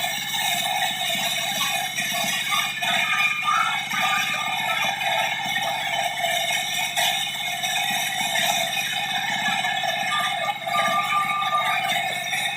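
Diesel-driven sawmill running steadily, the engine pulsing evenly under the ringing whine of the saw blade.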